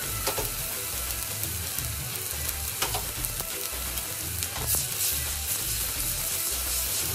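Chopped onions, tomatoes and garlic-ginger paste sizzling steadily in hot oil in a balti wok, with a few sharp metal clinks from the ladle as the mix is stirred. Background music with a steady beat runs underneath.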